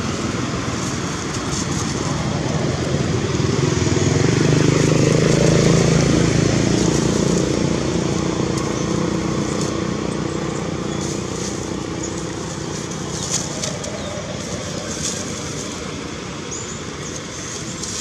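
A motor vehicle engine passing by, growing louder to a peak about five or six seconds in and then slowly fading.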